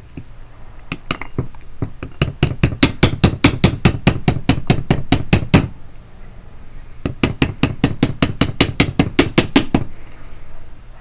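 Rapid light taps of a small hammer on metal, about five or six a second, in two runs with a pause of about a second and a half between them. The hammer is working the metal cap back down onto a car trunk lock cylinder.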